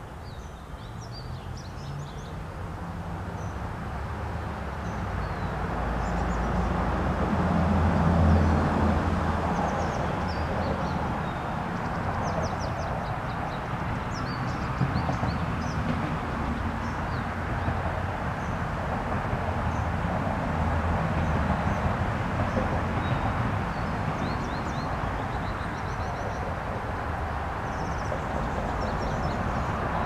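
Steady rumble of distant vehicle traffic that swells over the first several seconds, loudest about eight seconds in, then holds. Small birds chirp with short high notes throughout.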